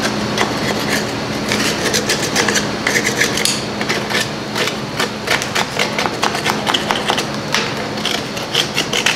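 A hand tool working on the rusty rear drum-brake shoes, springs and backing plate of a Jeep Cherokee, giving irregular quick metal clicks, taps and scrapes.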